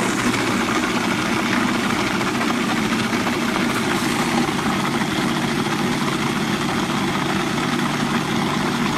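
Electric food processor motor running steadily with a constant hum, blending frozen yogurt mixture smooth as it turns creamy.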